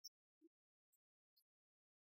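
Near silence, with a few faint, very short ticks.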